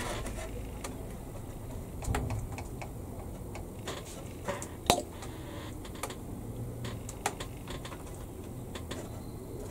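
Small plastic model parts and tools tapping and clicking against a plastic tank hull as a part is glued and pressed into place: a few scattered light clicks, with one sharper click about five seconds in.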